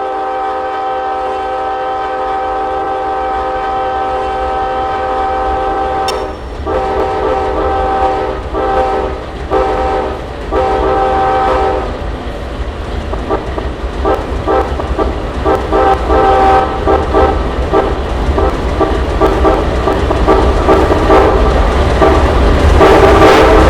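A BNSF freight locomotive's multi-tone air horn plays a horn show. It holds one long chord for about six seconds, then gives four shorter blasts, then a long run of quick stuttering toots, over the low rumble of the train. Near the end a loud rushing noise of the train rises sharply.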